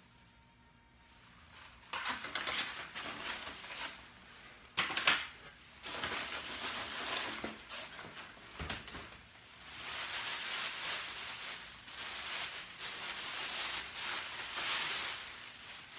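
Packaging crinkling and rustling in long stretches as the next item is unwrapped and pulled from the box, with a sharp knock about five seconds in.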